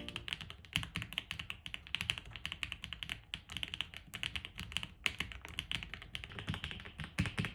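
Fast, continuous typing on a Fox 65 mechanical keyboard with Chosfox White Fox linear switches: a quick, even stream of key strikes, many per second.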